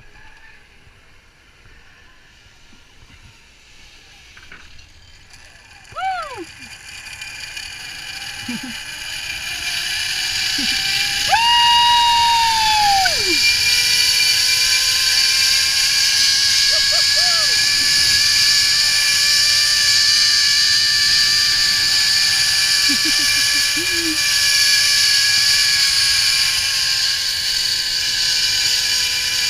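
Zip-line trolley pulleys running along the steel cable. The whir builds from about six seconds in and then holds loud and steady, with a hum whose pitch slowly rises and then falls. A long, voice-like shout comes about twelve seconds in.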